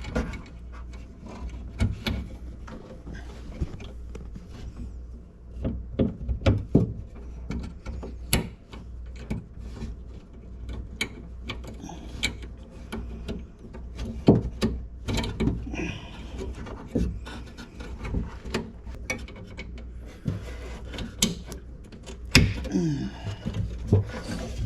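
Irregular clicks, knocks and metallic rattles of a car-door window regulator being worked by hand back into its track inside the door, over a low steady hum.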